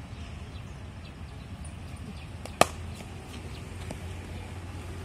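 A single sharp impact sound about halfway through, over a steady low hum and background noise.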